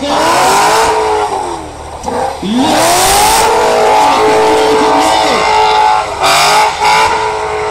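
Drift car's engine revving hard, its pitch rising and falling again and again through the slide, with two short hissing bursts of tyre noise about three and six seconds in.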